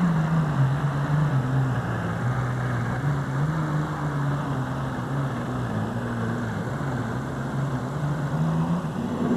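Turbocharged super stock diesel pulling tractor engine running hard under load while pulling the sled down the track. It is a steady pitched drone that drops in pitch about half a second in, then wavers up and down.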